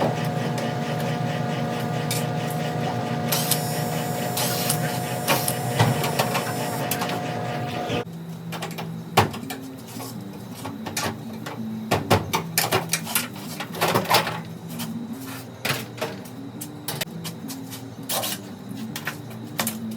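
A small electric motor hums steadily and cuts off abruptly about eight seconds in. After that come scattered clicks and knocks, with a faint pitched tone that shifts in steps.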